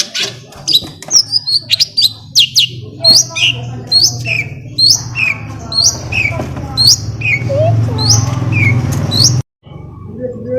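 Songbirds chirping and calling in quick short notes, with one chirp repeated roughly every 0.7 s, over a steady low hum. This is a stimulus recording (pancingan) used to make a long-tailed shrike start singing. The sound cuts out abruptly for a moment near the end.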